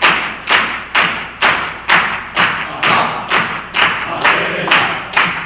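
A men's choir clapping hands in unison to a steady beat, about two claps a second.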